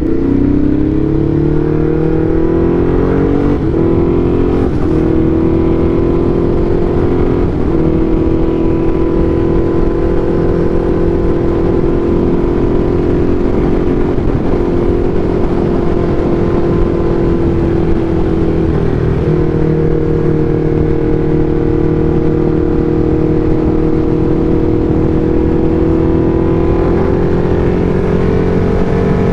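Motorcycle engine running at a steady cruise with a rumble of wind and road noise. The engine note holds nearly level, with a few brief dips.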